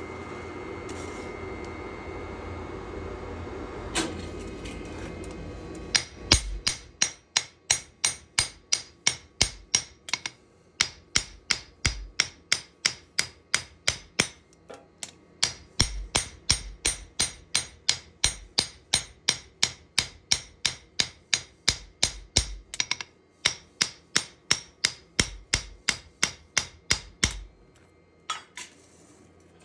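Hammer blows on hot steel in a knife forge: sharp, ringing metallic strikes about three a second in long runs with brief pauses, beginning about six seconds in after a single blow. A steady hum fills the first few seconds.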